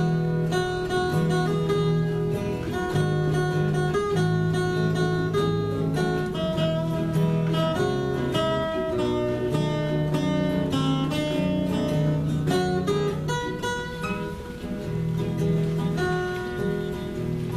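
Acoustic guitar strumming a steady chordal accompaniment.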